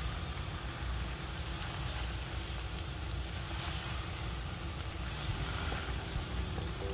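Pork belly and wild garlic leaves sizzling steadily in a frying pan while being stirred with a wooden spatula, over a constant low rumble.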